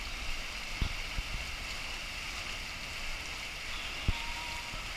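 Water slide's flow pouring out of the flume exit into the splash pool: a steady rush of water. A few short low thumps cut through it, about a second in and again near the end.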